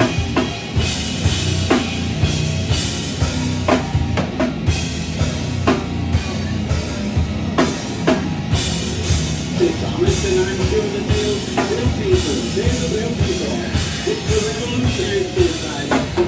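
Heavy metal band playing live: distorted guitars and bass over fast, dense drumming with regular accented hits. A wavering melodic line comes in over it about ten seconds in.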